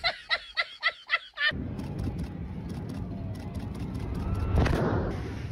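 A person's rapid run of high-pitched staccato cries, about seven a second, cut off about a second and a half in. Then a low-flying jet aircraft passes, its rushing noise building to a peak about four and a half seconds in and starting to fall away.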